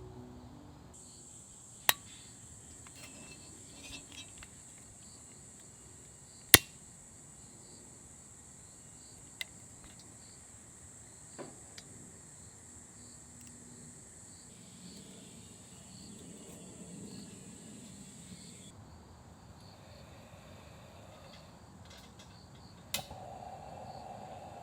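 Grass insects chirping in a steady high-pitched drone that eases off about three-quarters of the way through, with a few sharp knocks scattered across it, the loudest about six and a half seconds in.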